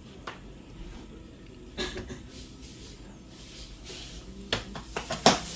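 Scattered short clicks and knocks from handling a Brother DCP-T310 printer and its parts. A quick cluster of clicks near the end is the loudest.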